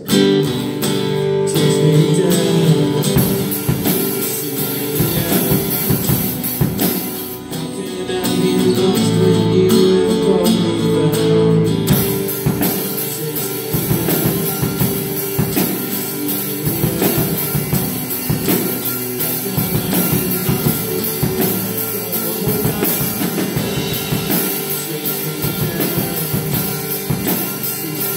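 Live band rehearsal playing a song's bridge: a Fender acoustic guitar strummed in chords over keyboard, with a drum kit keeping the beat. The cymbals fill in more steadily about twelve seconds in.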